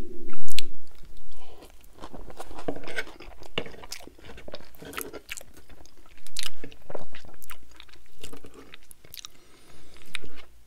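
Close-miked chewing of a mouthful of loaded tater tots with melted cheese and salsa: irregular mouth clicks and smacks.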